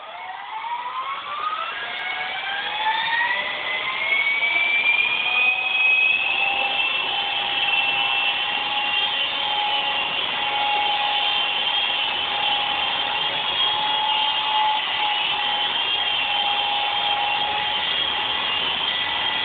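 Esky Honey Bee V2 electric RC helicopter spooling up: the motor and rotor whine rises in pitch and grows louder over the first few seconds, then holds at a steady high pitch as the helicopter lifts off and hovers.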